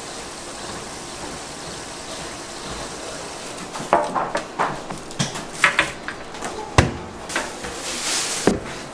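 Steady kitchen background noise, then from about halfway an irregular run of knocks, clicks and clatter from utensils and work surfaces as the cookies are made, with two sharper knocks near the end.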